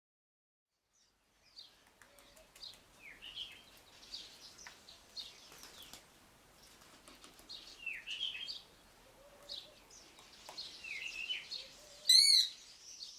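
Birds chirping in short, repeated phrases after a second and a half of silence, with one loud, sharp call near the end.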